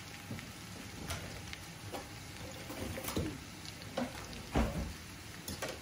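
Raw potato strips frying in hot butter and oil in a pan: a steady sizzle with scattered pops about once a second, and one dull knock a little past four seconds in.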